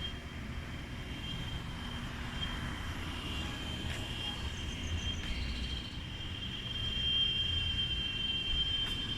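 Cicadas singing in a steady high-pitched drone that swells louder near the end, over a low rumble.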